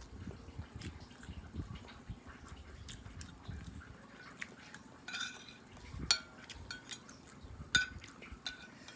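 Close-miked eating sounds: wet chewing and lip smacking on a mouthful of instant noodles. In the second half a metal spoon clinks and scrapes against a ceramic plate several times, with two sharp ringing clinks the loudest.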